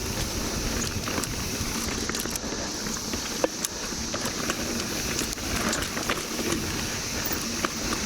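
Mountain bike riding over a dirt trail: tyre and wind rumble with scattered ticks and rattles. Behind it runs the steady high drone of a periodical (17-year) cicada chorus.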